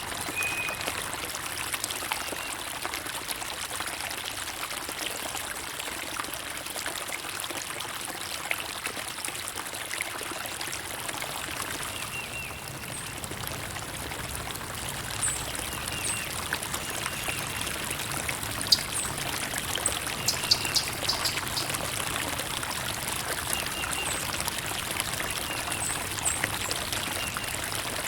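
Water trickling and pouring steadily, with short high bird chirps now and then and a quick cluster of them about two-thirds of the way through.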